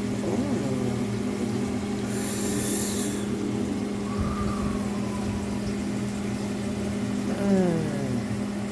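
Steady low electrical hum from a running kitchen appliance, with a brief soft hiss about two seconds in.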